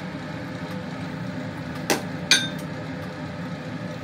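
Two sharp clinks about half a second apart, the second louder and ringing briefly, like a utensil or dish knocking against the plate, over a steady low kitchen hum.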